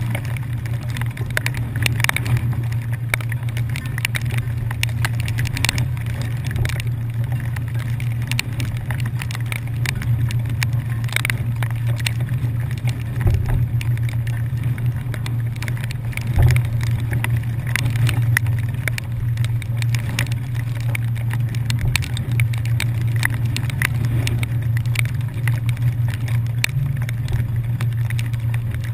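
Steady low drone of a passenger ferry's engines under way, with scattered light ticks and knocks over it.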